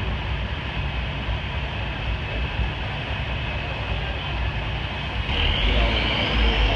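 Early-1950s Chevrolet convertible under way, its engine and road noise heard from the open car, a steady low rumble that grows louder about five seconds in with a faint rising whine.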